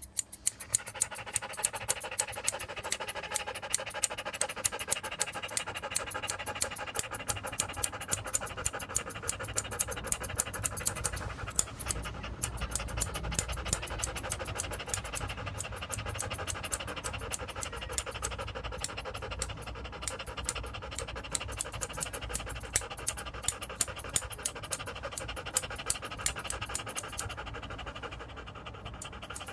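Grooming scissors snipping through a standard poodle's curly coat in a quick, steady rhythm, about three snips a second, over a steady hum.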